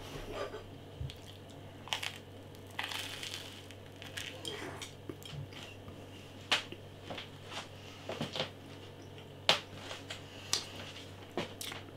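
Biting and chewing toast topped with milk chocolate sprinkles (hagelslag), heard as scattered short crunches and clicks at irregular moments.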